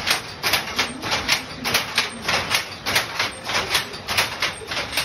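Power loom running, a fast even mechanical clatter of about three to four clacks a second.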